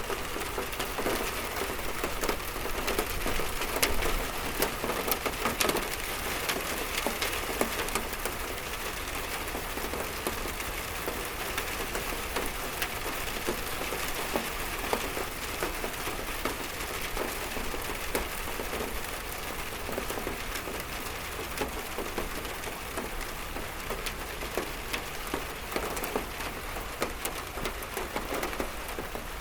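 Steady rain falling and pattering on a surface, with many separate drops ticking through the hiss; a little heavier in the first few seconds.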